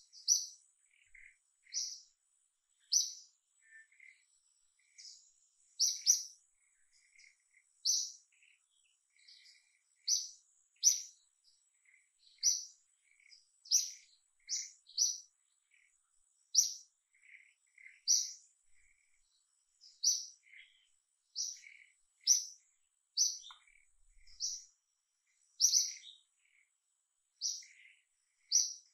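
Wild birds chirping in short, high notes, about one a second and unevenly spaced, with fainter lower calls between them, over a thin, steady, high insect whine.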